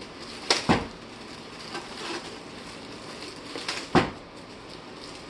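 Styrofoam packing and a cardboard box being handled during unpacking: rustling and scraping, with two sets of sharp knocks about half a second in and again just before four seconds in.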